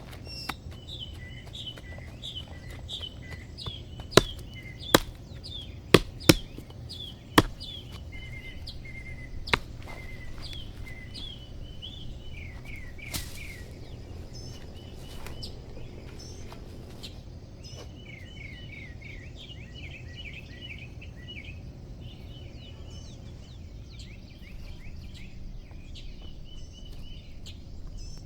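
Small birds chirping repeatedly over steady low background noise, with six sharp knocks between about four and ten seconds in, the loudest sounds here.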